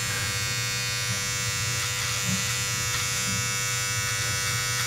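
Braun All-in-One Series 5 trimmer running with its body-trimmer head, a steady buzz as it trims sideburn hair close to the skin.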